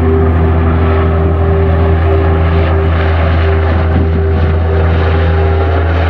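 A helicopter flying overhead, its rotor and turbine engine giving a loud, steady hum.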